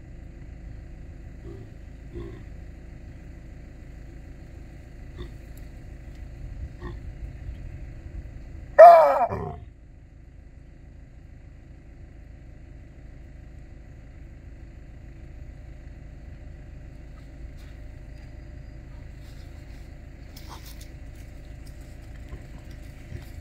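A chacma baboon gives one loud bark about nine seconds in, sliding steeply down in pitch, the call a dominant male uses to assert himself. A low steady rumble runs underneath.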